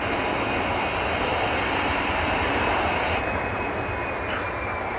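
Airbus A340-300's four CFM56 jet engines at approach power as it passes overhead on final with gear down: a steady jet rumble with a faint high whine that slides slightly lower in pitch.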